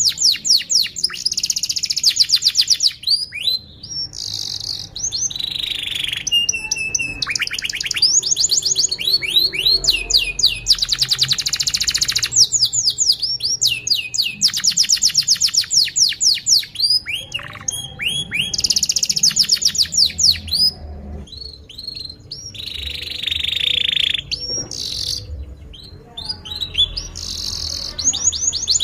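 Domestic canary singing a long, nearly unbroken song: runs of fast repeated trill notes alternating with sweeping chirps, with only brief pauses between phrases.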